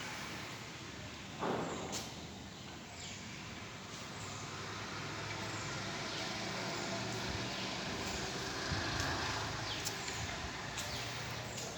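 Outdoor ambience: a steady low hum under repeated short, high chirps that fall in pitch, with one louder brief sound about a second and a half in.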